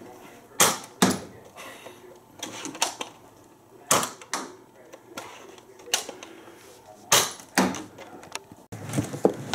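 A series of sharp plastic clicks and knocks from a Nerf Zombie Strike crossbow blaster being handled, several coming in pairs about half a second apart.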